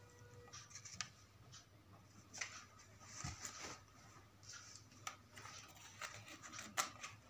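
Faint handling sounds of a handmade paper card: light rustling and a few small taps and clicks as it is moved and propped in place on a shelf, with one sharper click near the end.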